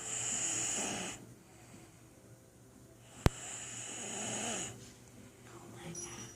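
A person snoring, a long rasping snore roughly every three seconds. A single sharp click sounds just after the middle.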